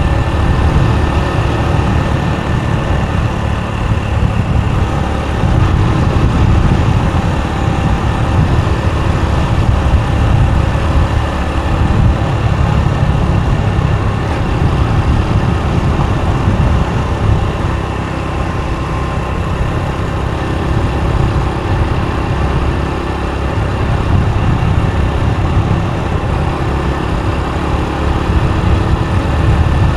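Motorbike riding along a road: steady engine and road noise with a heavy low rumble that swells and eases a little but never stops.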